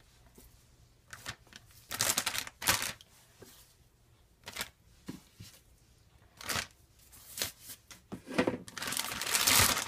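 Plastic zip-top bag crinkling and rustling in short bursts as chicken legs are put into it, with a longer, louder stretch of crinkling near the end.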